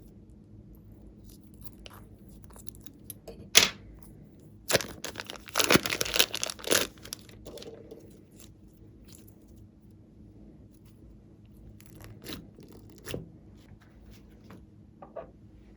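Something being torn and crinkled by hand in a small room: a sharp click about three and a half seconds in, then a couple of seconds of dense tearing and rustling, with a few soft taps near the end.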